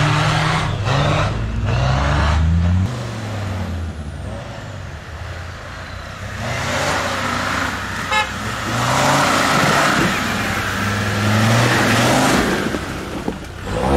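Land Rover Discovery Td5's 2.5-litre five-cylinder turbodiesel revving up and falling back several times under off-road load. A brief high tone cuts in about eight seconds in.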